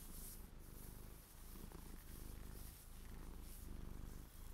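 Soft rubbing of knit knee socks as hands stroke them on the legs. Under it runs a low pulsing rumble in stretches about a second and a half long, with short breaks between.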